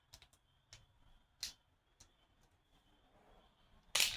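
Faint scattered clicks and taps of a toy being handled, then near the end a sharp, loud double slap: a slap bracelet snapping shut around the wrist.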